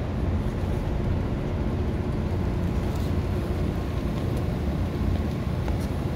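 Steady low rumble of city background noise, the hum of distant traffic, with a few faint ticks partway through.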